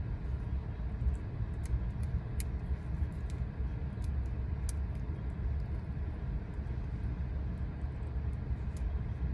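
Steady low rumble of road noise inside a moving car, with a few faint clicks scattered through it.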